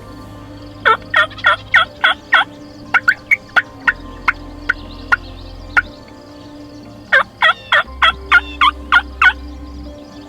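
Wild turkey calling: two quick series of sharp yelps, each note dropping in pitch, with a few single yelps between them. Faint background music sits underneath.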